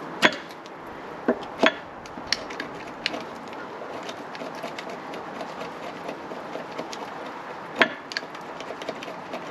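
Pieces of wood knocking together and being set down: sharp knocks about a quarter second in, twice around a second and a half in, and again near eight seconds, with lighter ticks and scraping between.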